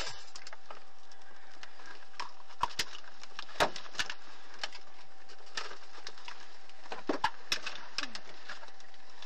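A dozen or so short, sharp clicks and cracks at irregular intervals, the loudest a few seconds in, over a faint steady electrical hum.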